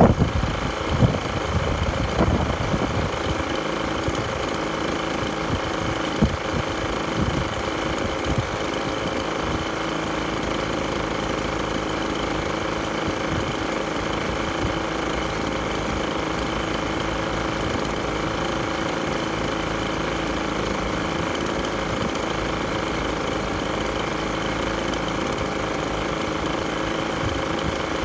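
25 cc two-stroke gas leaf blower engine, fitted with an Intelligent Spark Plug, running at idle. A few uneven louder beats come in the first several seconds, then it settles into a steady, even idle.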